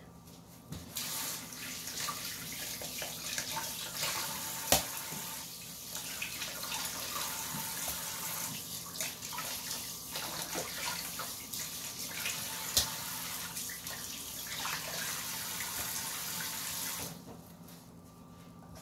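Water running from a tap, steady, with a couple of sharp knocks in the middle; it stops shortly before the end.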